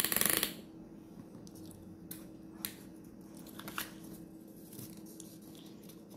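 Thin plastic wrapper of a surprise-egg toy packet torn and rustled briefly at the start, then only faint crinkles and small clicks as the paper leaflet and plastic capsule are handled.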